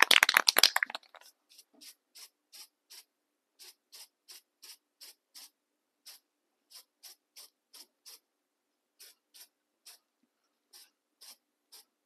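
Aerosol can of clear coat, rattled loudly for the first second, then sprayed in many short puffs of hiss, roughly two a second, as a light coat goes onto a painted foam duck head.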